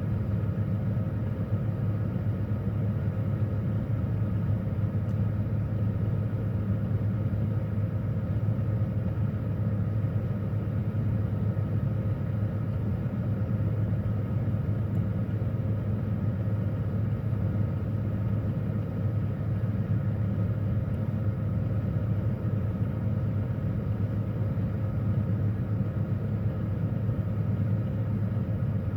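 Refrigerator running with a steady low hum, heard from inside the fridge.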